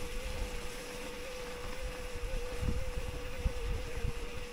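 Low wind rumble on the microphone, with a steady, slightly wavering hum.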